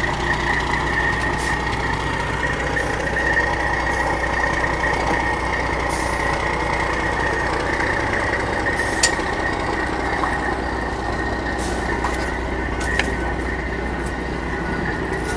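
A heavy vehicle engine running steadily, with a steady high whine over it and a couple of faint clicks.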